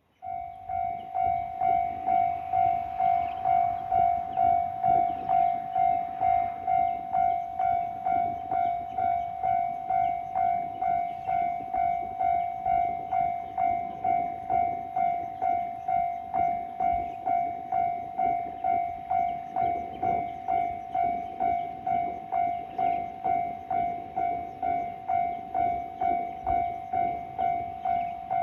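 Japanese railway level-crossing warning bell starting up suddenly and ringing steadily in a regular clang about twice a second, warning that a train is approaching.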